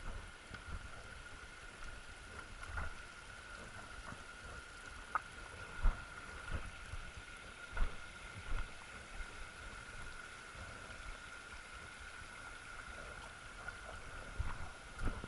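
A hiker's footsteps thudding unevenly on a mountain trail, two heavier steps about six and eight seconds in, over the steady rush of a small mountain stream.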